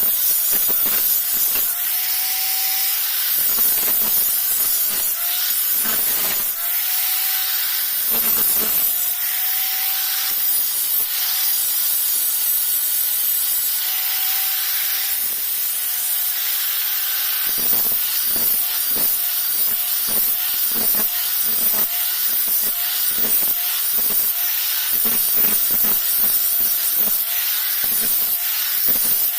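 Repeated scraping strokes of metal work on a machete blade, as in filing or sharpening, each stroke carrying a faint tone, over a steady hiss. The strokes are spaced out at first, then come quickly and evenly, about one and a half a second, from a little past halfway.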